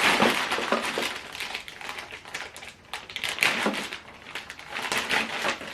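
Rustling and crackling with small knocks from items and packaging being handled, loudest near the start.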